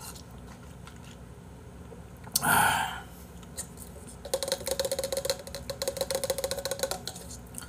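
A brief, loud slurp of seaweed soup sipped from a plastic bowl, then after a pause a run of rapid light clicks, about ten a second, lasting nearly three seconds.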